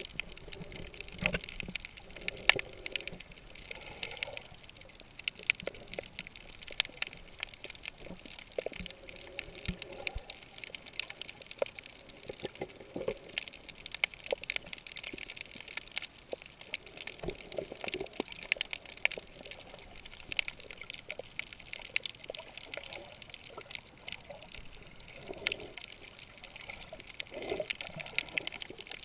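Underwater ambience of a coral reef, picked up by a camera held below the surface: a steady water hiss and irregular gurgling, with sharp clicks and crackles scattered throughout.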